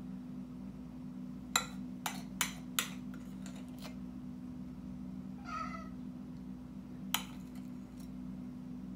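Metal spoon clinking against a glass mixing bowl and drinking glass while thick whipped coffee foam is scraped out and spooned onto milk: four sharp clinks in quick succession, a few fainter ones, and one more later. About halfway through, a short high cry that rises and falls in pitch, over a steady low hum.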